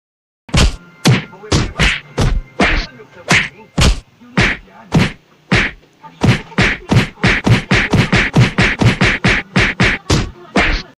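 A run of about thirty punch-and-whack sound effects, each a sharp smack dying away quickly, dubbed over kittens play-fighting. They come about every half second at first, then speed up to around four a second from about six seconds in.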